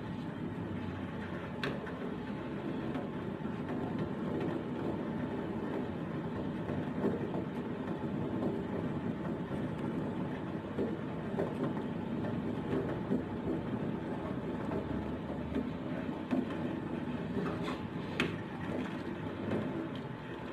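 Steady rushing rumble of a lit gas stove burner under a stainless steel pot of corn soup. A metal ladle clicks sharply against the pot a few times, once near the start and twice near the end.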